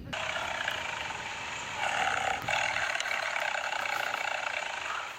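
A big cat's rough roar, starting suddenly and running about five seconds, loudest about two seconds in.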